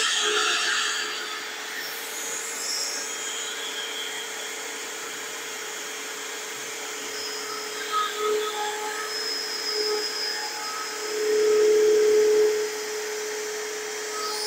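CNC router spindle with a 1-inch bit running at a steady high whine while it is jogged across a walnut slab, surfacing it on a shallow first pass. It grows louder for a second or so about eleven seconds in.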